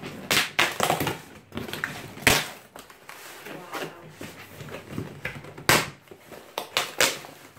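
Cardboard parcel being torn open and unpacked: packing tape ripping and cardboard flaps crackling, in a series of sharp rips and crackles, the loudest about two seconds in and just before six seconds.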